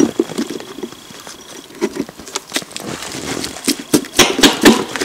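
Hammer knocking and prying at a wooden marten box nailed to a tree trunk, working its nails loose: a string of irregular knocks, coming quicker and loudest near the end.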